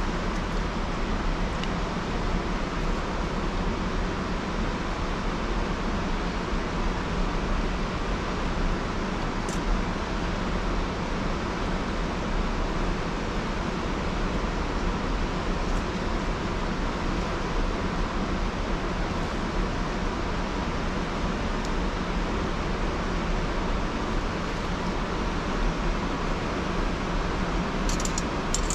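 Steady rushing noise, with a few faint crackles from a small wood fire.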